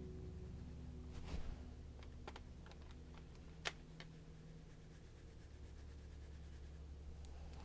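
Quiet handling sounds of drawing with a marker on a sketchbook page: a few light clicks and taps, the sharpest a little past the middle, over a steady low hum.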